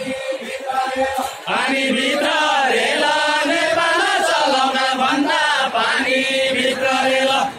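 A group of voices singing a Deuda folk song of far-western Nepal together, chant-like. It is quieter and broken at first, then a loud, sustained sung line comes in about a second and a half in and carries on almost to the end.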